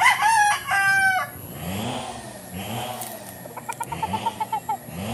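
Rooster crowing once, loud, in the first second. About three and a half seconds in comes a quick run of about ten short clucks, over a low rumble in the background.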